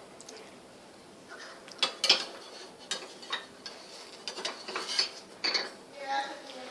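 Kitchen utensils clinking and scraping against a pan and dishes while pancakes are being cooked: scattered sharp clinks and knocks, several close together about two seconds in and again around five seconds.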